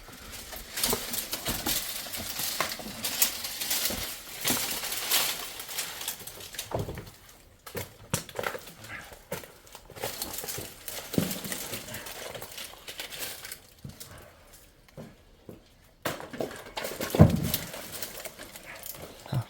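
Irregular knocking, clatter and scraping, as of objects being handled or worked, with a quieter spell in the second half and the loudest knock near the end.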